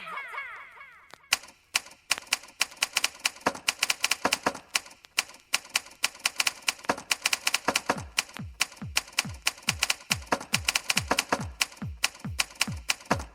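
Electronic dance track built on typewriter sounds: fast, rhythmic typewriter keystroke clicks. About halfway through, a deep kick drum joins, about two beats a second, each one dropping in pitch.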